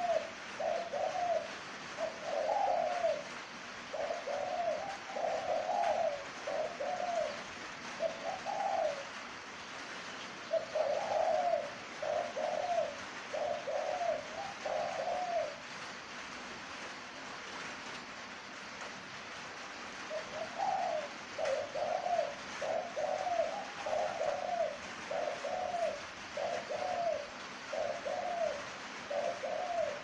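Caged spotted dove cooing in runs of short, repeated low coos for about fifteen seconds, falling silent for about four seconds, then cooing again. The bird is molting, which its keeper says keeps its calling from being at full strength.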